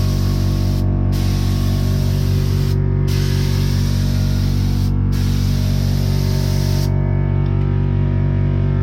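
Paint being sprayed onto a Land Rover Defender bonnet, hissing in bursts of about two seconds with short breaks between passes; the spraying stops about seven seconds in.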